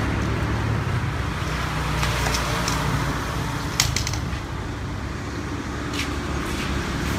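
A few light clicks and taps of plastic sprayer parts being fitted onto the spray lance, over a steady low background rumble.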